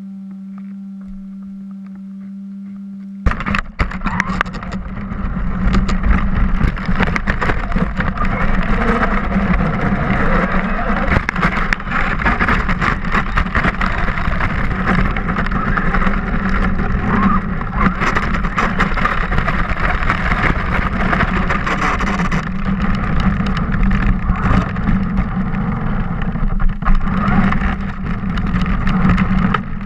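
Onboard sound of a radio-controlled car: a steady low hum for about three seconds, then it sets off and a loud rush of motor, tyres and water spray takes over, full of crackles and splashes.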